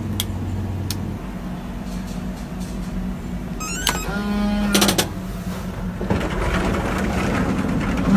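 Steady low hum with a few clicks; about four seconds in, pressing the door-unlock button on a capsule bed's control panel brings a short electronic tone and a couple of clicks.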